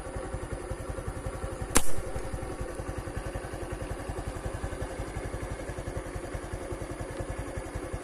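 A slingshot shot: one sharp snap of the rubber bands about two seconds in. Under it, an engine idles with a steady low putter.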